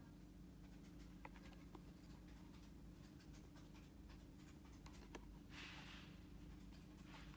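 Near silence: a steady low room hum with faint handling noise from a hand-held plastic-cased tester being turned over, a few light clicks and a soft brushing rustle about six seconds in.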